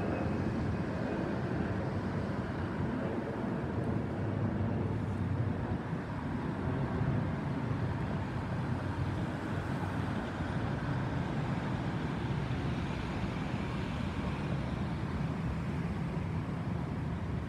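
Airbus A320's CFM56 turbofan engines heard from the ground as a steady low jet rumble while the airliner climbs away, with a faint thin whine that dies out in the first second.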